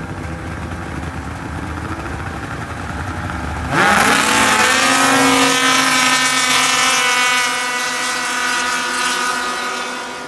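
Two-stroke mountain snowmobiles idling at the start line, then about four seconds in their engines rev up sharply as the sleds launch in a drag race. They hold loud high revs, then fade as they pull away near the end.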